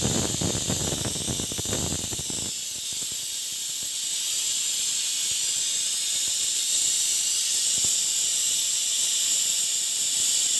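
Stovetop pressure cooker whistling: steam jets out from under its weight valve with a steady, high hiss, the sign that the cooker is at full pressure. For the first couple of seconds a fuller rushing noise sits under the hiss, and it cuts off abruptly.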